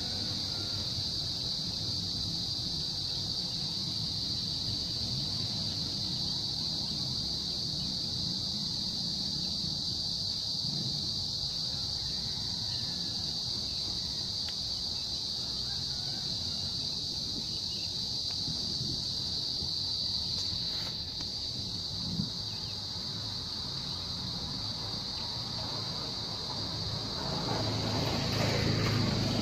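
Steady high-pitched chorus of insects, likely crickets or cicadas, running without a break over a low outdoor rumble that grows louder near the end.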